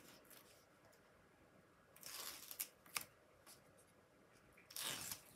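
Faint rustling and crackling of a sheet of 1 mm foam tape pieces being handled and a piece peeled off its backing: two short scratchy bursts, about two seconds in and near the end, with a single click around three seconds in.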